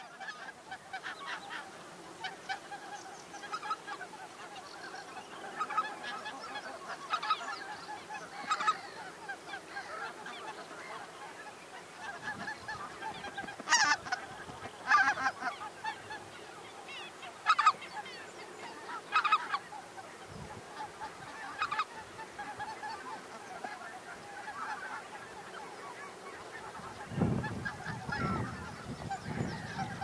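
A large flock of geese calling all the time: a dense chorus of overlapping honks, with single louder calls standing out now and then. A few low rumbles come near the end.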